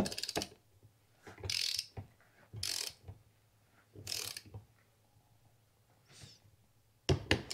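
Small ratcheting torque wrench clicking as it is worked back and forth on the crown bolts of a Manitou suspension fork: a quick run of clicks at first, then short bursts of ratchet clicks every second or so. The wrench is set to 14 newton metres.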